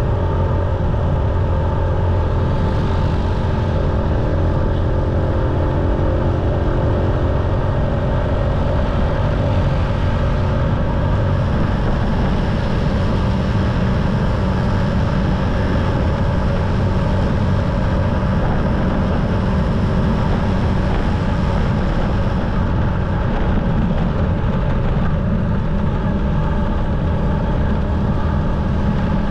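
Motorcycle engine running steadily while riding, its hum laid over a dense, constant low rumble of wind and road noise on the camera microphone.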